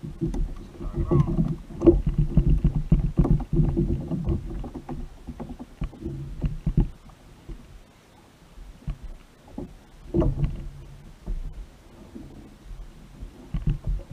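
Sounds of a fishing kayak at sea: water moving against the hull with a low rumble and many short knocks and thumps, busiest in the first half and again about ten seconds in.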